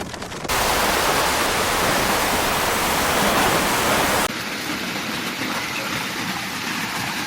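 Storm noise: a dense, steady rushing hiss that cuts in sharply about half a second in, then drops abruptly to a quieter rush about four seconds in.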